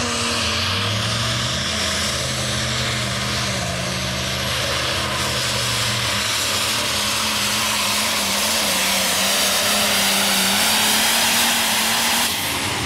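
Light Pro pulling tractor's engine under full power, dragging the weight sled down the track with a steady, loud engine note. About 12 seconds in, the sound drops off sharply as the pull ends and the tractor comes to a stop.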